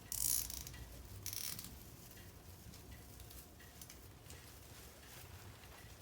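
Two brief rustling scrapes about a second apart as plastic parts are fitted onto an artificial Christmas tree, followed by faint handling sounds.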